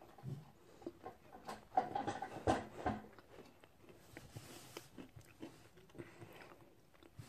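Someone chewing a bourbon biscuit close to the microphone: quiet, scattered crunches and mouth clicks, a little louder around two to three seconds in.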